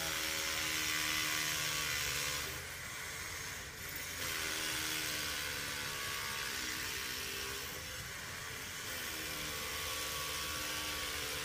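Hammer drill set to hammer mode, boring into the concrete steps for a railing post's anchors: a steady motor whine over a dense rattling hiss, its speed shifting briefly about four seconds in and again near nine seconds.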